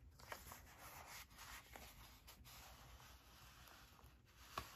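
Faint rustling and sliding of paper and cardstock as envelope flaps and journaling cards are handled, with a light tap near the end.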